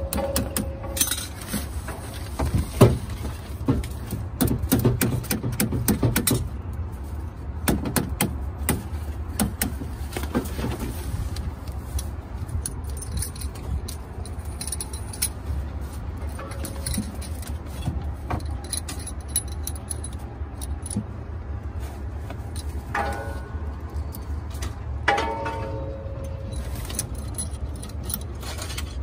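Metal clicks, clinks and scrapes of hands working pliers on an armoured cable and fitting a brass cable gland, thickest in the first dozen seconds and sparser after, over a steady low rumble.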